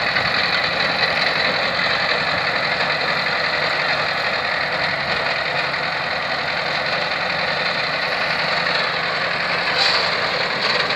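T-74 crawler tractor's diesel engine running steadily, with a brief tick near the end.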